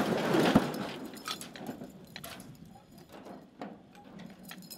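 A loud knock right at the start, then a rush of noise fading over about a second, followed by scattered light metallic clinks and rattles.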